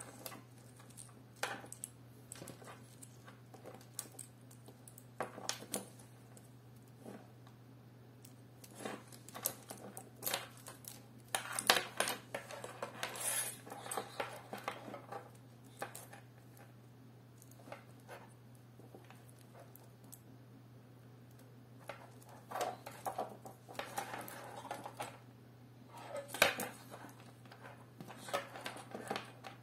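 Plastic Molex and SATA connectors on a computer power supply's cable bundle clicking and clattering against each other and the wooden table as the cables are handled and sorted, in irregular bursts. A steady low hum runs underneath.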